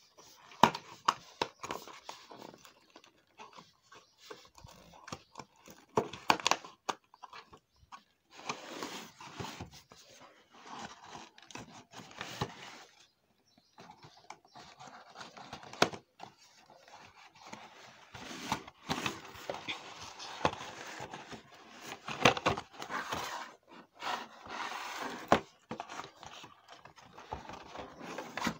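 A cardboard doll box being opened by hand: irregular scraping, rustling and tearing of the cardboard packaging, with sharp knocks and snaps in between.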